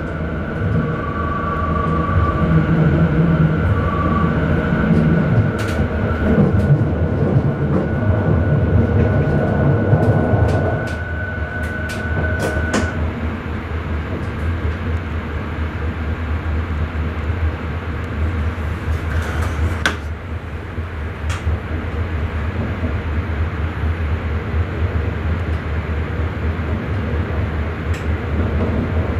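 Sprinter electric train running on the rails, heard from the driver's cab: a continuous rumble of wheels on track with scattered sharp clicks. A high steady whine stops about thirteen seconds in, and the running noise drops a little from there on.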